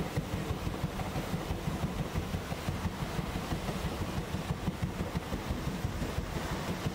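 Paddle steamer Waverley under way: a fast, even low beat from its paddle wheels, over a steady rush of wind and water.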